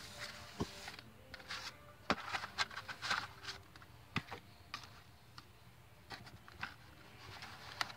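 Scattered light clicks and taps of handling, most densely about two to three seconds in, over a faint steady room hum.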